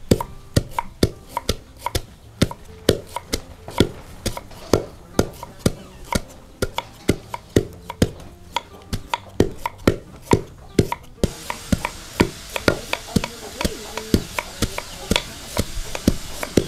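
Knife chopping food on a cutting board in a steady rhythm, about three strokes a second.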